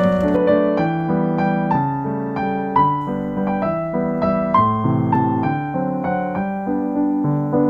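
Soft background piano music: a steady flow of single notes over low chords, in a gentle, lilting melody.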